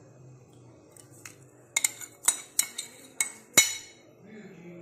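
Metal teaspoon clinking against a ceramic bowl and spice containers while salt and black pepper are measured onto raw chicken bones: a run of about seven sharp, ringing clinks over two seconds, the last one the loudest.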